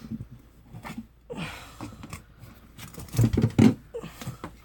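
Big screwdrivers used as tyre levers scraping and clicking against a quad-bike wheel rim as they pry the tyre bead off, with a few louder knocks about three seconds in.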